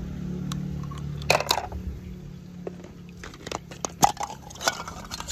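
Clear hard-plastic capsule balls being handled and knocked together: a string of sharp clicks, knocks and crackles, loudest about a second and a half in, with a single sharp click about four seconds in. A low hum sits under the first two seconds.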